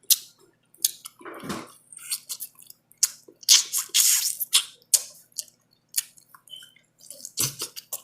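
Close-up eating sounds: irregular wet smacks and chewing of soft food, broken by short sharp clicks.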